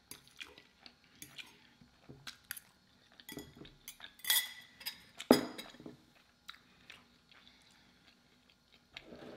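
Metal spoon clinking and scraping against a small glass bowl: a string of scattered light clinks, the loudest a little past four and five seconds in.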